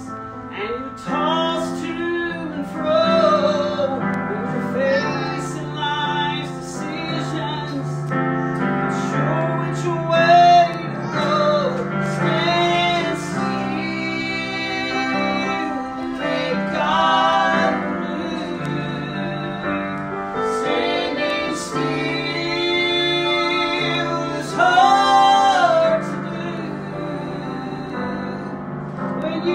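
A woman singing a slow gospel song, accompanying herself on a digital piano, with a girl's voice joining in.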